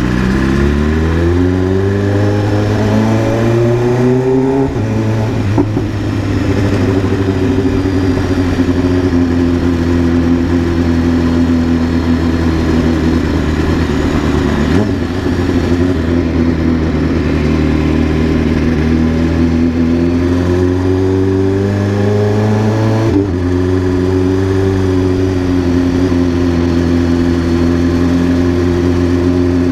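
BMW S1000RR inline-four sport bike engine under acceleration. The revs climb for the first few seconds and drop at an upshift about five seconds in, then hold fairly steady while cruising. They climb again and drop at another shift a little after twenty-three seconds.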